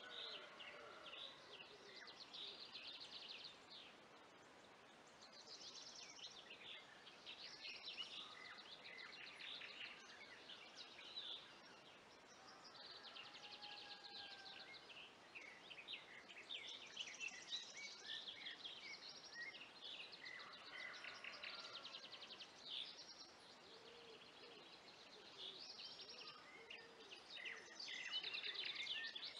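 Faint chorus of several songbirds singing at once, overlapping chirps and quick trills.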